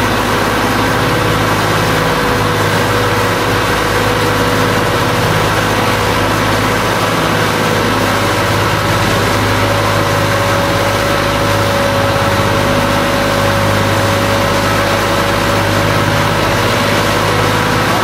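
Boat engine running steadily: a low, even drone with a whine that rises slightly in pitch about halfway through.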